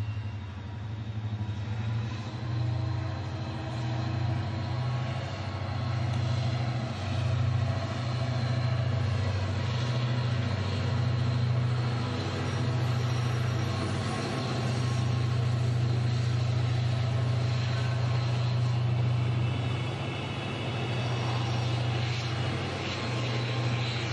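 FGC class 254 diesel locomotive (No. 254.03) running along the line at a distance. Its engine makes a steady low drone over general rail noise.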